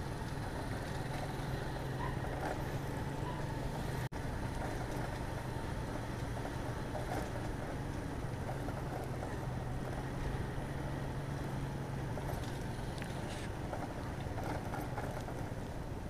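Kawasaki Fury 125 motorcycle engine running steadily at low speed under wind and road noise, picked up on a phone. A momentary dropout to silence about four seconds in.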